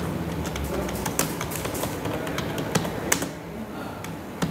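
Computer keyboard typing: a run of irregular keystroke clicks, a few of them louder.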